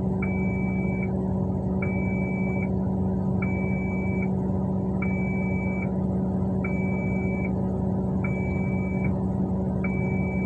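Heavy diesel mining machinery running steadily, a loud drone. Over it a reversing alarm beeps one high tone at a time, each beep about a second long, repeating about every second and a half.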